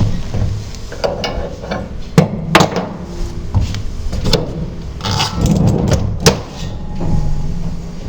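Irregular knocks and clunks, with several sharp strikes among them, over a low uneven rumble: a motorcycle stand holder being handled and set with a motorbike.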